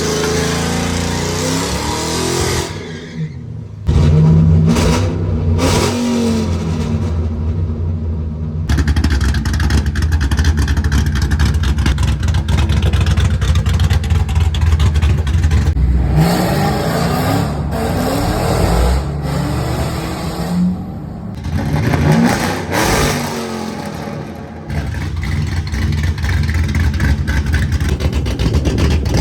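Car engines accelerating hard, pitch rising as they rev up and shift, heard in several short clips cut together.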